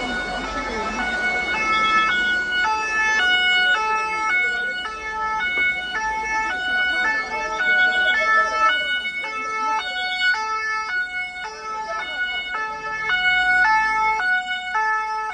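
Two-tone emergency vehicle siren, steadily alternating between a high and a low pitch. Faint voices are heard under it at the start.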